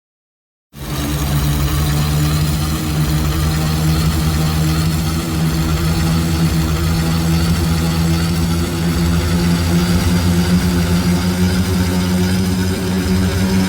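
A loud, steady, low droning sound effect, engine-like, with several held low pitches. It starts abruptly after a moment of silence and holds unchanged.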